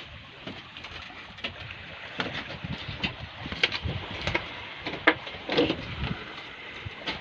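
Irregular metallic clicks and knocks of hand tools and parts being handled on a small diesel engine that is not running, over a steady background hiss; the sharpest click comes a little after five seconds in.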